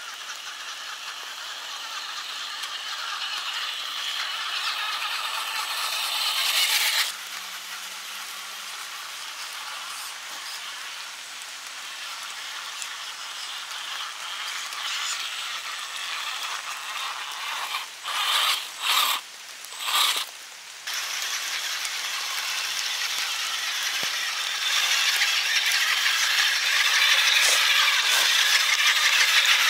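Radio-controlled toy tractor, converted with a 1/10-scale electric drivetrain, driving over dry leaf litter: a steady rattling and rustling from its drivetrain and tyres in the leaves. The sound drops out briefly a few times about two-thirds of the way through.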